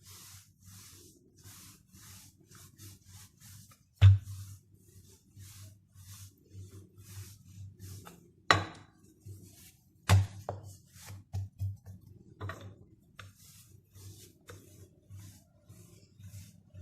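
Rolling pin being pushed back and forth over soft dough on a floured work surface: a run of short repeated rubbing strokes, with three sharp knocks partway through.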